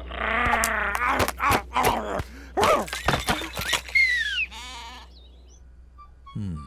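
Cartoon sheep bleating in a wavering voice, followed by scattered knocks and clicks and short vocal noises. A falling, whistle-like squeak comes about four seconds in, and a short falling groan near the end.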